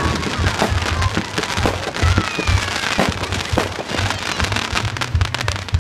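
Consumer fireworks going off in a rapid barrage: many bangs and crackles in quick succession over a low rumble, with a few short whistles gliding in pitch.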